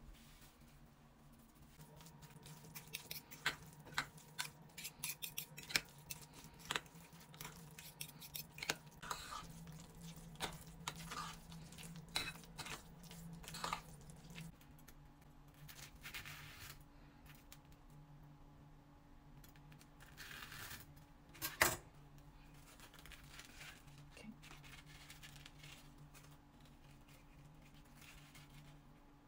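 A metal spoon clinking and scraping against a ceramic bowl in a quick run of light clicks as chopped boiled egg is mashed and mixed with mayonnaise. Later come a few soft rustles and one sharp click.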